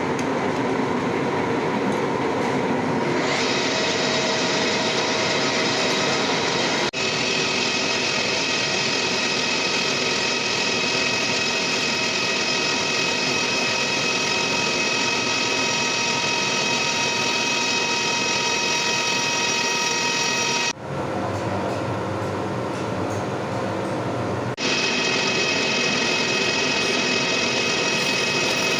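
Machine tool cutting a metal crane bearing flange: steady machining noise with a high ringing whine from the cut. The whine starts about three seconds in, drops out for a few seconds near the end leaving a lower rumble, then comes back.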